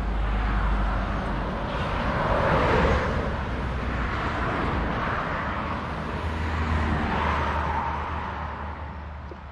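Road traffic: several cars passing one after another, the tyre and engine noise of each swelling and fading, the loudest pass about three seconds in, over a steady low rumble.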